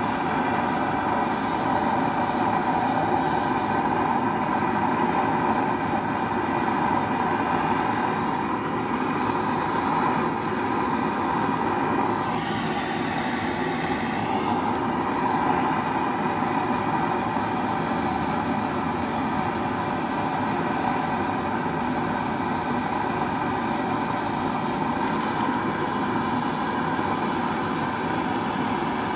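Hand-held gas torch running on kitchen LPG, burning with a steady hiss as its flame heats a melting dish of gold. About twelve seconds in, the sound changes for a couple of seconds while the torch is lifted off the dish, then settles back.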